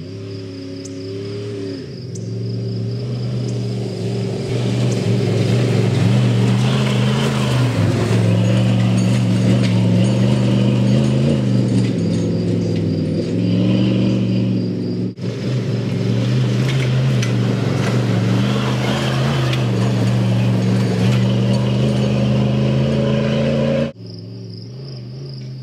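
Off-road vehicle's engine running hard on a dirt track, growing louder over the first few seconds, its pitch rising and falling with the throttle. The level drops suddenly near the end. Crickets chirp in the background at the start and again near the end.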